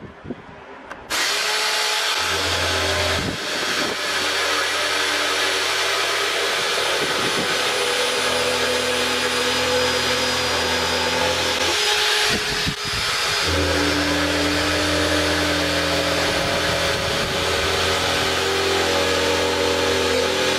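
Corded electric drill used as a router in a homemade plywood base: a few faint clicks, then the motor switches on about a second in and runs at a steady high speed while the cutter routes into a wooden board. The run briefly dips about twelve seconds in, then carries on.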